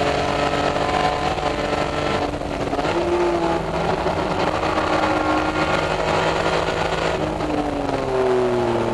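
Heard from inside the cabin, the straight-six engine of a BMW Z3 Coupe race car runs hard at speed, with road and wind noise behind it. Its note shifts about two to three seconds in. Near the end the revs fall as the car slows into a corner.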